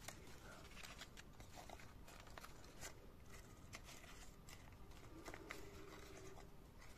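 Faint rustling and crinkling of folded origami paper being handled and pressed together by hand, in short scattered strokes.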